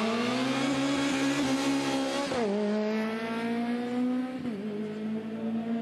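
KF1 racing kart's 125cc two-stroke engine running flat out with a high, buzzing whine. Its pitch sags slowly and briefly drops and recovers twice, about two and a half and four and a half seconds in, as the throttle is eased and reopened.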